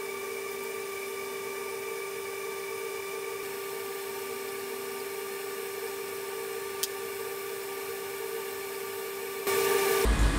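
Steady mechanical hum made of several constant tones, with a single sharp click about seven seconds in. A louder rushing noise sets in near the end.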